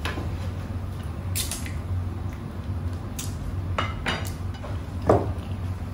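Tableware clatter during a meal: spoons and hands tapping and clinking on plates and bowls, a handful of scattered clinks with the loudest about five seconds in, over a low steady hum.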